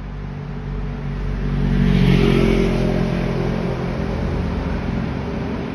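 A motor vehicle's engine passing close by, swelling to its loudest about two seconds in and then slowly fading.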